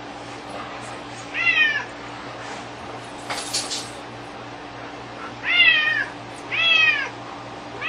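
Domestic cat meowing three times, each meow falling in pitch, with a fourth just starting at the very end, calling for the string toy that has been taken away from it. A short rustling noise comes about three and a half seconds in.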